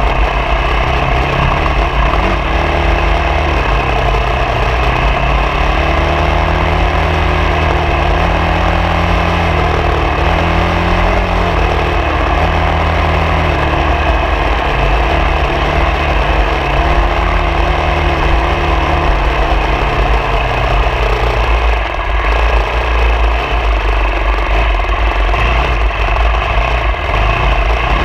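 Engine of an off-road vehicle being driven over rough ground, its pitch rising and falling repeatedly as the throttle changes, over a steady noisy rush.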